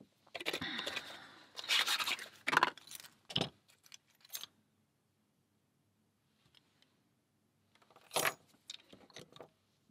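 Metal lock picks and tension tool clinking and rattling against a large padlock in clusters of sharp clicks over the first four seconds or so, then a short clatter about eight seconds in.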